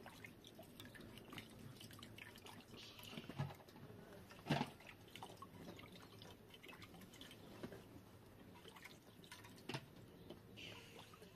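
Faint, scattered small clicks and taps, with one louder sharp knock about four and a half seconds in.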